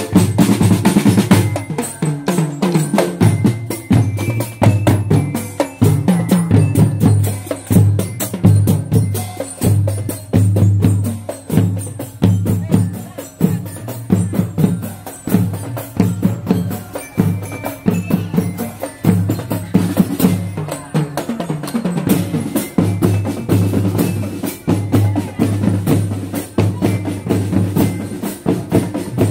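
Marching drum corps playing a steady, fast parade rhythm: snare drums rattling and clicking over tenor drums, with bass drums pounding a repeating low beat.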